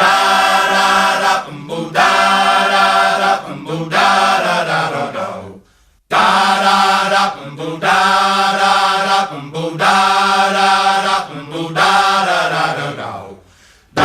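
Soundtrack music with sustained chanted, choir-like vocal chords in short phrases. Each section ends in a downward pitch slide that fades out, about six seconds in and again near the end.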